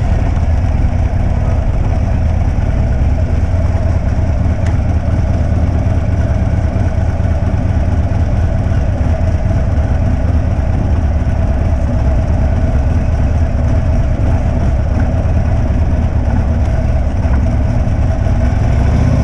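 Motorcycle engine running steadily at an even pace with a low rumble, apparently at idle.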